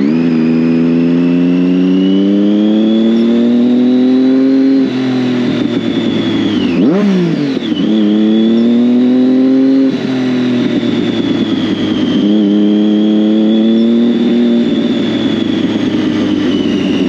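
Triumph Daytona 675's inline-three engine pulling through the gears, its pitch climbing slowly in each gear and breaking at several gear changes. About seven seconds in, the revs drop sharply and rise again.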